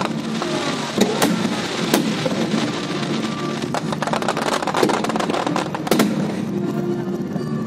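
Aerial fireworks going off overhead: a dense run of sharp bangs and crackles, with louder booms about one, two and six seconds in. Music plays underneath.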